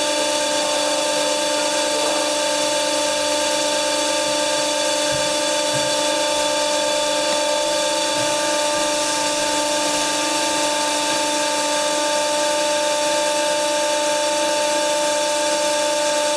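Steady machine whine at one unchanging pitch, like a small electric motor running continuously, over a background hiss.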